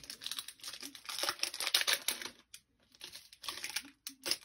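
Crinkling and rustling of a foil trading-card pack wrapper being handled, in two spells with a short pause about halfway through.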